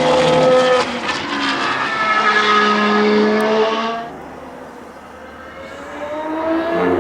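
Mercedes-AMG F1 W08 Formula 1 car's turbocharged V6 hybrid engine at high revs on track, its pitch dropping briefly under a second in and then climbing steadily as it accelerates. About four seconds in the engine sound falls away abruptly, then builds again near the end as the car comes back into earshot.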